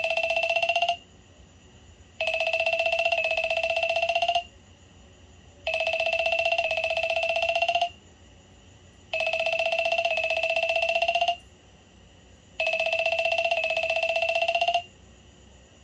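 LG Classic Flip flip phone playing a telephone-style ringtone. An electronic ring sounds in bursts of about two seconds with a pause of just over a second between them, four full rings plus the tail of one at the start.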